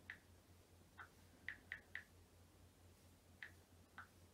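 Smartphone on-screen keyboard clicking faintly as a password is typed: about seven short ticks at an uneven typing pace, bunched near the middle and twice more near the end.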